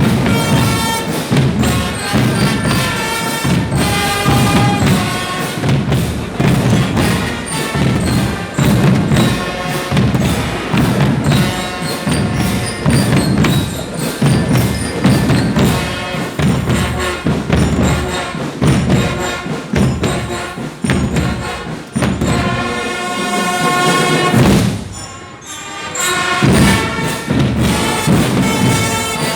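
Music with a steady, heavy drum beat under sustained melodic instruments, briefly dropping away about three quarters of the way through before resuming.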